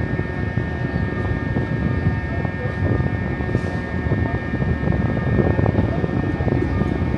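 Steady low drone of a passenger ferry's engines and machinery, with several steady high whining tones above the rumble.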